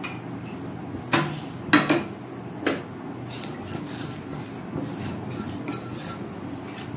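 Nigella seeds frying in hot mustard oil in a frying pan, with light crackling, while a wooden spatula knocks against the pan three times in the first three seconds and then stirs.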